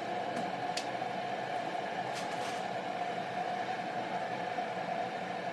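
Hot oil sizzling steadily in a large iron karahi as jalebi batter is piped in and deep-fries, over a steady hum.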